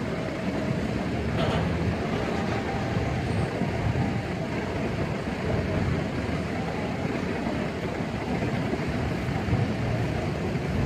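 Freight train boxcars rolling past at a grade crossing: a steady rumble of steel wheels on the rails, with a short sharp clank about a second and a half in.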